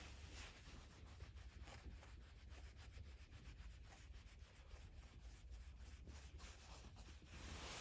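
Fingers scratching a cat's fur at the cheek and chin, making a faint, rapid rubbing of short repeated strokes.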